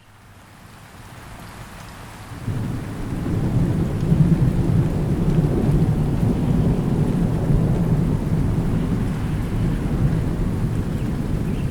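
Thunderstorm: steady rain with rolling thunder. The sound fades up from quiet, and about two and a half seconds in a low thunder rumble swells in and keeps rumbling under the rain.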